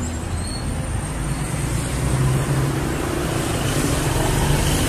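Street traffic noise: a car engine running close by over the general hum of the road, growing a little louder about halfway through.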